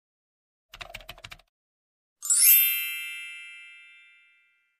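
Intro sound effect: a quick run of keyboard-like clicks, then, about two seconds in, a single bright chime that rings out and fades away over about two seconds.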